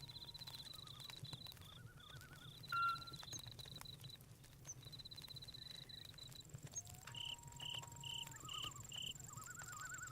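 Night-forest insects: crickets chirping in repeated pulsed trills, joined about six seconds in by a thin, steady high-pitched insect buzz. Short warbling calls, a louder sharp chirp about three seconds in, and faint scattered crackles of a campfire sit under them.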